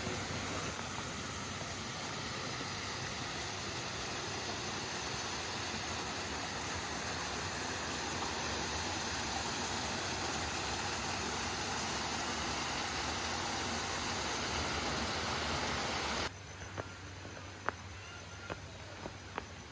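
Water rushing steadily down a small rocky cascade in a garden stream, slowly growing louder. It cuts off abruptly about sixteen seconds in, leaving a quieter background with a few light clicks.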